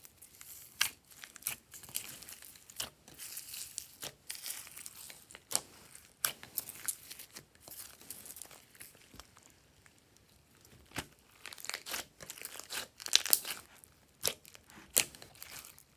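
Hands squishing and kneading glossy slime mixed with foam beads: irregular sticky pops, clicks and crackles as the slime is folded and pressed, with the sharpest pops coming in the last few seconds.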